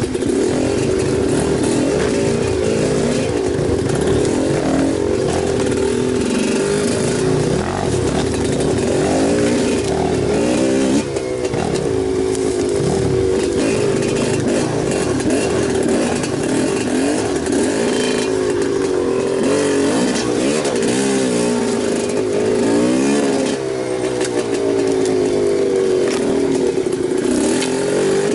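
Enduro motorcycle engine running under load off-road, its pitch rising and falling over and over as the throttle is worked, with a few sharp revs.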